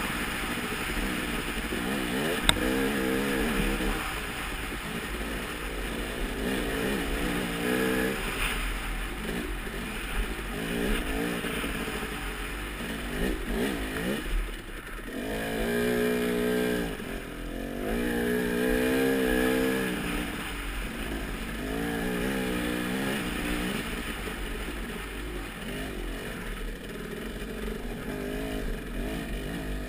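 Off-road motorcycle engine revving up and down repeatedly, its pitch rising and falling with throttle and gear changes, over a steady rushing noise with some clatter. A single sharp click about two and a half seconds in.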